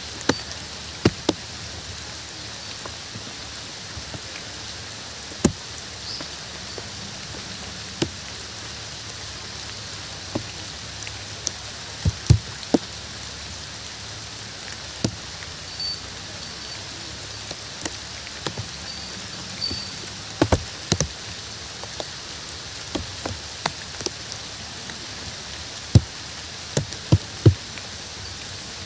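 Steady rain falling in an even hiss, with irregular sharp drips landing close by, a few every several seconds, some much louder than the rain.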